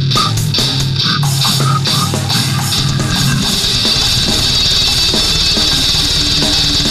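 Heavy metal recording with distorted guitars, bass and drums. The drum hits are separate at first, and about four seconds in the band breaks into a faster, denser section.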